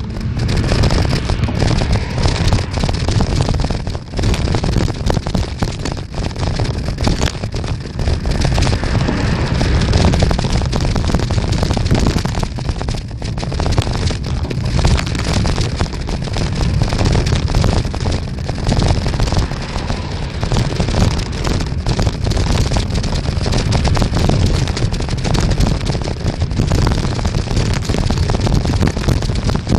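Wind buffeting the microphone while riding a bicycle: a loud, continuous rumble with ragged low gusts that never lets up.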